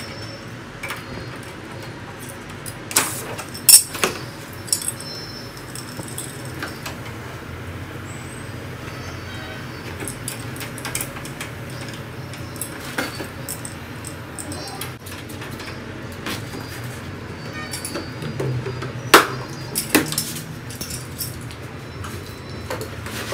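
Hand tools clicking and clinking against the copper refrigerant pipes and brass fittings of a split air conditioner's indoor unit. The sharp clicks are scattered, with a cluster about three to four seconds in and another near the end, over a steady low hum.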